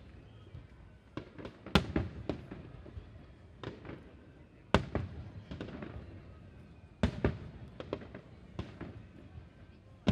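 Aerial firework shells bursting overhead: a series of sharp booms at uneven intervals, each trailing off in echo. The loudest comes just under two seconds in, with strong ones again about five and seven seconds in.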